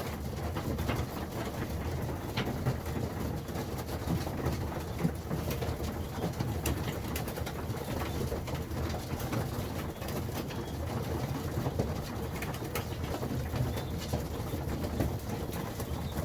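Racing pigeons cooing, a steady low murmur of many birds, with scattered short clicks throughout.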